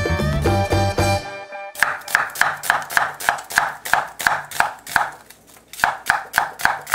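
Background music that cuts off about a second in, followed by a knife chopping on a cutting board in an even rhythm of about three strokes a second, with a short pause near the end.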